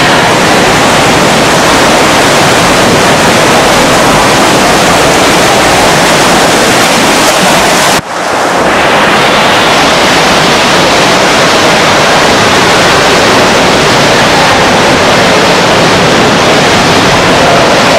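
Loud, steady rushing noise of competitive swimmers splashing through a freestyle sprint. It cuts out abruptly for a moment about eight seconds in, then carries on.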